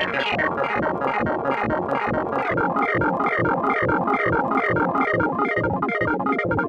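Knobula Poly Cinematic Eurorack synthesizer playing a fast, even sequence of short pitched notes, about four a second.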